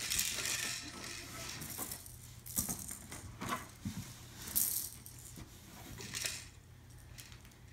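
A baby rummaging in a toy basket and handling toys: several short bursts of rattling and rustling, with a few light knocks.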